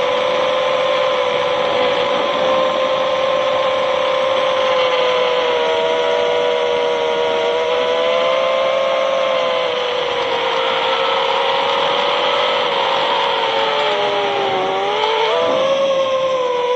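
FPV drone's electric motors and propellers whining in flight, heard from its onboard camera. Several close pitches drift up and down together with the throttle, sag about fourteen seconds in and jump back up a second later.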